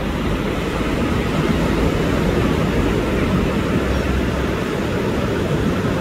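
Ocean surf breaking on a sandy beach: a steady, unbroken rush of waves with a deep low rumble underneath.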